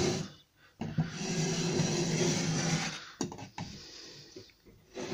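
Pencil scribers being drawn along a wall to mark a cupboard top for cutting: one point scrapes against the plaster and the pencil rubs along the board. The scraping runs for about two seconds, then comes a sharp click, and the scraping starts again near the end.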